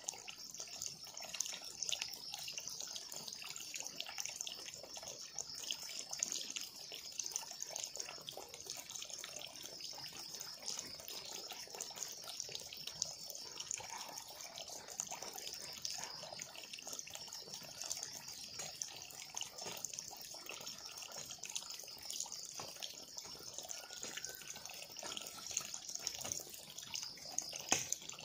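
Water running and splashing steadily, with a constant trickling patter. Insects chirp steadily behind it.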